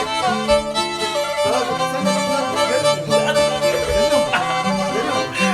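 Black Sea kemençe playing an instrumental passage of a folk tune: a bowed melody over long, steady drone notes.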